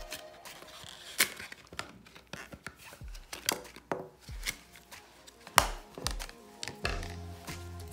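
Clear plastic clamshell packaging of laptop RAM modules being handled and pried open: several sharp plastic clicks and some crinkling, the loudest click a little past halfway, over background music.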